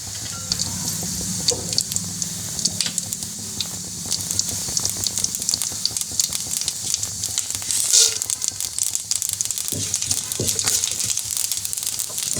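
Spices sizzling in hot ghee in a pan for tempering, a steady hiss with frequent small crackles and pops and a louder crackle about eight seconds in.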